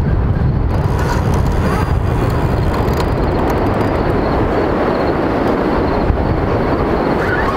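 Steady wind rumbling against the microphone.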